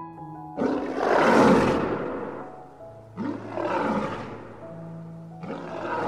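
An animal roaring three times, rough calls about two and a half seconds apart, each swelling and then fading, over soft background music.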